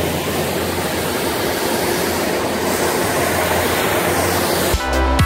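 Snowmaking fan gun blowing: a steady, loud rushing hiss with a low hum under it. Music takes over near the end.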